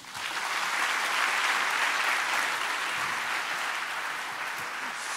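A large audience applauding. The clapping starts suddenly and slowly eases off.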